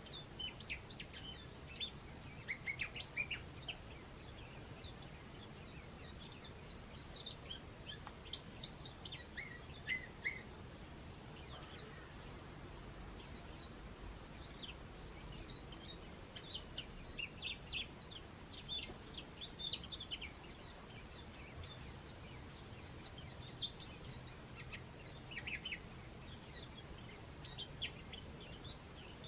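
Small garden birds calling, many short high chirps in loose clusters, over a faint steady low background noise.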